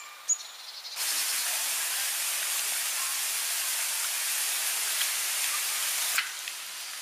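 Steady rushing hiss of running water, starting abruptly about a second in and cutting off shortly before the end, with a single sharp click just before it starts.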